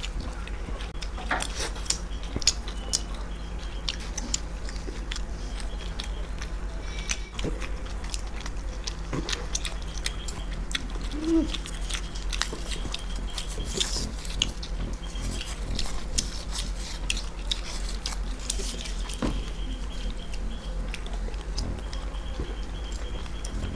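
Two people chewing and biting into egg rolls close to the microphone: an unbroken run of irregular mouth clicks and smacks.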